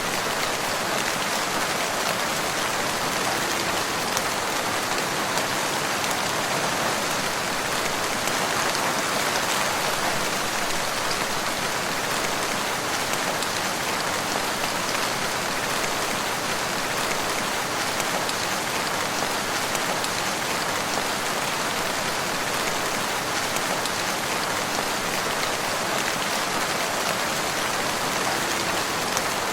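Steady rain falling in a forest, an even patter of raindrops that neither builds nor fades.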